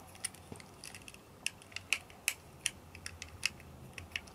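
Small screwdriver turning a tiny screw in a plastic toy tire rack, with fingers handling the plastic: a dozen or so light, irregularly spaced clicks and ticks.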